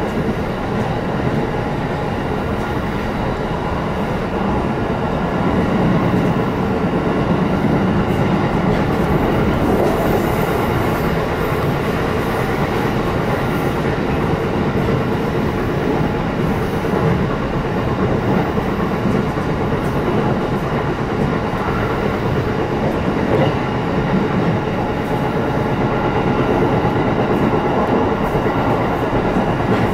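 Shinano Railway electric train running along the line, heard from inside the passenger car: a steady rumble of wheels and running gear, a little louder from about six seconds in.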